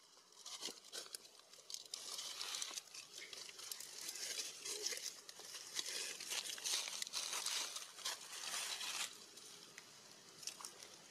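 Dry fallen leaves crackling and crunching as something moves over them, a dense run of small crackles that drops away about nine seconds in.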